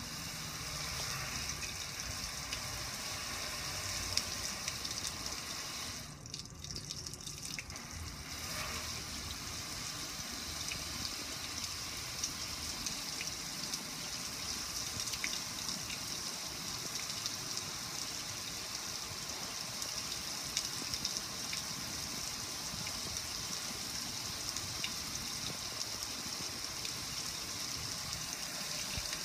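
Water spraying down onto a metal gas grill and splashing and streaming off its lid and control panel: a steady hiss, briefly weaker about six seconds in.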